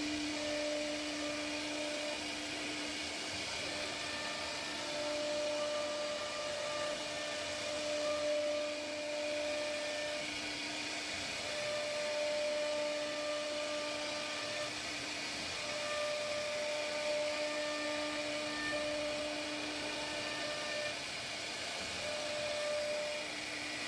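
CNC router spindle routing grooves into a wooden door panel: a steady whine over the hiss of the bit cutting the wood, with tones that come and go every few seconds.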